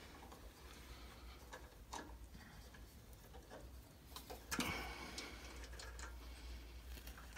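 Faint scattered clicks and light metal taps as an Allen key turns the set screws on a band saw's lower blade guides and the guide parts are handled, the loudest tap about four and a half seconds in.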